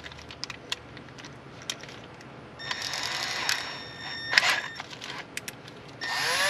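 Cordless drill run in short bursts: a steady whine lasting about a second, from about two and a half seconds in, then a short spin-up around four and a half seconds and another near the end, with small clicks and taps in between.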